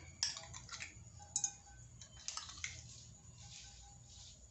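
A steel spoon clinking lightly against a glass bowl, about four short clinks, as mustard oil is spooned into a pan.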